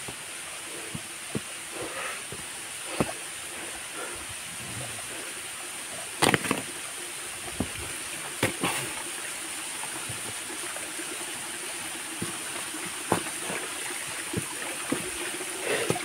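Steady rush of flowing stream water in a forest, with a constant high-pitched hiss over it. Scattered sharp knocks and clicks cut through, the loudest about six and eight and a half seconds in.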